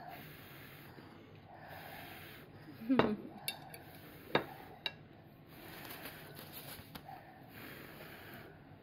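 Soft, repeated puffs of breath blowing to cool a spoonful of freshly cooked hot rice. About three seconds in there is a short vocal sound, and a few light clicks of a spoon and dishes follow over the next two seconds.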